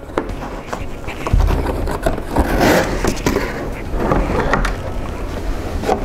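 A cardboard sleeve scraping and rustling as it is slid off a plastic tool case, with clicks and knocks as the case is unlatched and its lid opened.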